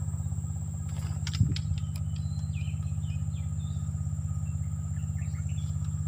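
A steady low engine hum with a fast, even throb runs throughout, over a thin high insect drone. A few faint short chirps come and go, and there is a soft thump about a second and a half in.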